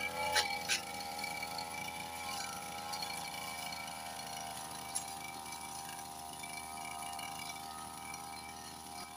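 Petrol brush cutter engine running steadily at high speed, with a couple of sharp ticks about half a second in and another about five seconds in.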